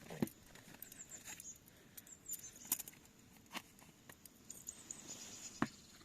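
A handful of light, sharp clicks and knocks at irregular intervals, with faint, very high, thin chirps in between.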